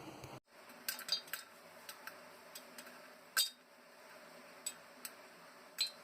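Popcorn kernels popping in a pot: about a dozen sharp, irregular pops with a light metallic ring, the loudest about three and a half seconds in.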